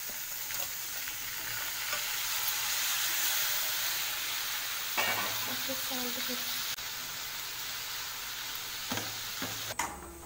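Chopped tomatoes and onions sizzling in hot oil in a metal kadai, a steady frying hiss with a few light clicks of stirring. The sizzle stops shortly before the end.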